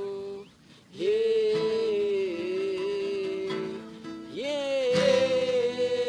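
Amateur male voice singing long wordless held notes over a strummed acoustic guitar. The voice breaks off briefly about half a second in, then comes back with a scoop up into each note.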